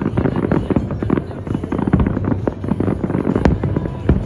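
Aerial fireworks going off in a rapid, dense run of bangs and crackles, with the pyromusical show's music playing underneath.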